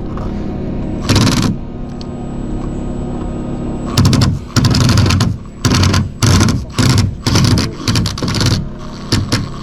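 A handheld power tool run in short rattling bursts: one about a second in, then a quick string of them, one or two a second, from about four seconds in. A steady low hum runs underneath.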